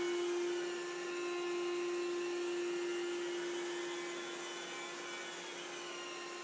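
Electric roller vacuum running steadily as it is pushed over damp carpet, a constant motor hum over a rushing noise.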